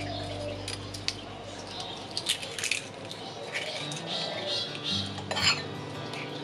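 Metal spoon scraping soft-boiled eggs out of their shells and clicking against a small glass bowl, a few sharp clinks among the scooping.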